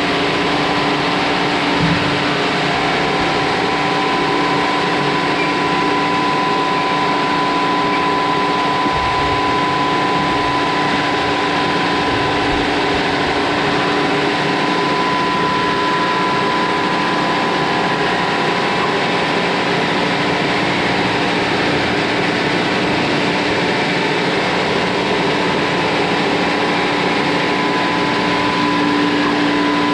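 Sawmill machinery running steadily and loudly, a continuous hum with a higher steady whine above it.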